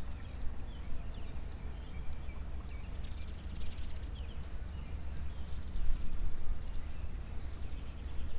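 Outdoor ambience: faint scattered bird chirps over a steady low rumble.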